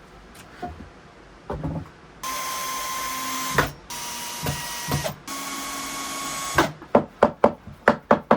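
A power drill runs at steady speed in three bursts of about a second each, with short stops between them. Then comes a fast run of sharp knocks, about five a second.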